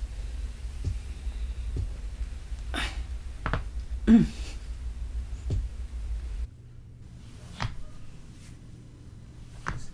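Spinal joints cracking during back and neck adjustments: a handful of separate sharp pops spread over several seconds. The loudest comes about four seconds in, together with a brief falling grunt.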